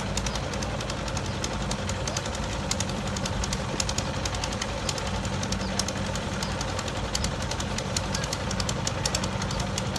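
A fishing boat's stern-mounted engine idling steadily, with a dense clatter of ticks over a low hum.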